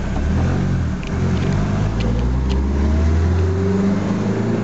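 1971 Mercedes-Benz 240D's four-cylinder diesel engine pulling the car away under acceleration, heard from inside the cabin. The engine note rises a little, then falls away briefly near the end.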